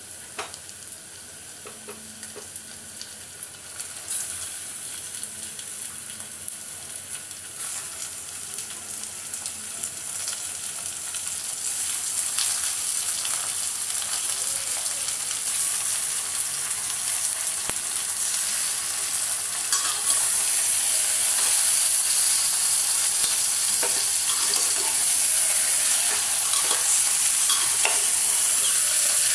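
Washed raw chicken sizzling in hot oil with fried onions. The sizzle grows steadily louder and jumps up about two-thirds of the way in, and a spoon clinks and scrapes against the pan as it is stirred.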